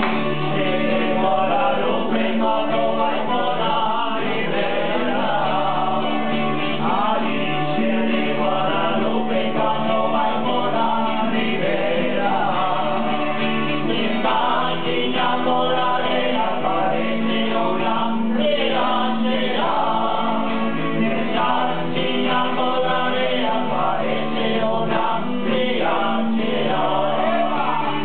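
A group of men singing together from song sheets, accompanied by an acoustic guitar.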